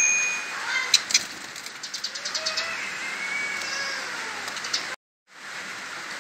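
Juvenile white-rumped shamas in a cage: a sharp click about a second in, then several short, rapid rattles of high clicks and a few faint short chirps over a steady hiss. The sound cuts out completely for a moment near the end.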